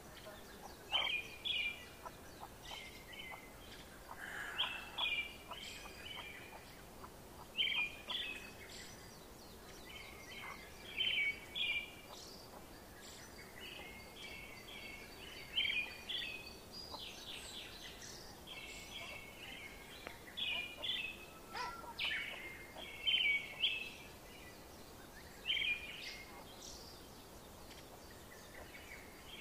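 Brood of young chicks peeping around a mother hen: short high chirps in little runs of several notes, repeating every second or two.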